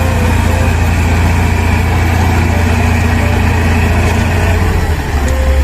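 Heavy truck engine idling steadily, with a strong low hum.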